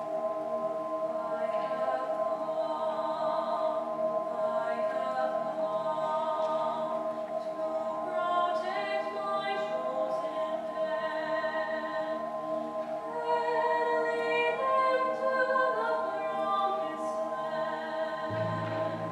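High school concert band playing a slow, sustained passage: one note held steadily underneath while softer melodic lines move above it. A low bass note comes in near the end.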